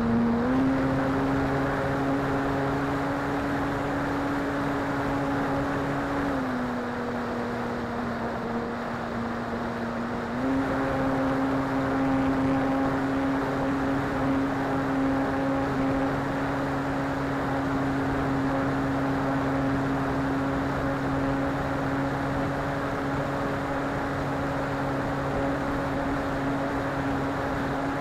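An RC model airplane's motor and propeller heard from the onboard camera, over wind rush. The steady hum steps up in pitch about half a second in, drops at about six seconds and rises again at about ten seconds, following the throttle, then holds steady.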